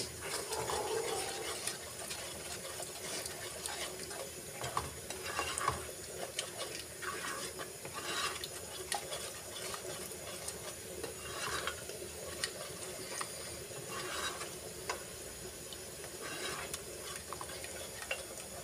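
A spatula stirring thick creamy masala gravy in a nonstick kadhai, with short, irregular scraping strokes against the pan over a faint steady sizzle of the gravy cooking.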